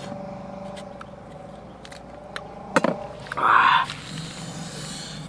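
A knife working a green mango, with a few light clicks and one sharp click a little past halfway, then a short breathy hiss of breath from the man. A faint steady hum runs underneath.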